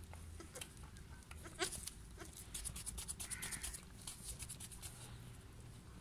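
Two goat kids suckling from their mother: soft wet sucking and smacking clicks, with a quick rapid run of them about two and a half seconds in.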